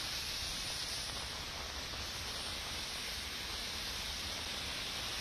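Heavy rain falling steadily on a road, an even hiss, with a faint low rumble of traffic on the wet road underneath.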